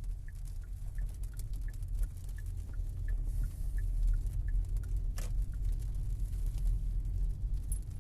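Car driving, a steady low rumble of engine and road noise, with a turn-signal indicator ticking in an even tick-tock, about one cycle every 0.7 seconds. A single sharp knock about five seconds in.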